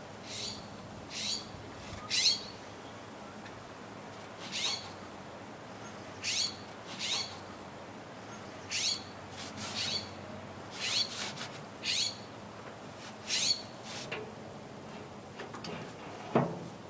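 A small bird chirping: a dozen or so short, high-pitched calls, each much like the last, repeated every second or so, with a brief lower sound near the end.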